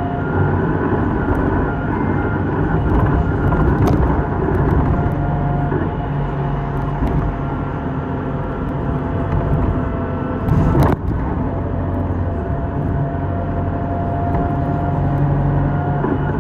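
Inside a city bus under way: steady diesel engine hum and road noise with a steady whining tone, and a brief loud knock about ten and a half seconds in.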